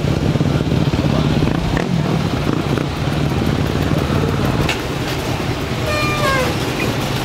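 Many enduro motorcycle engines running together in a steady drone. A short falling tone cuts through about six seconds in.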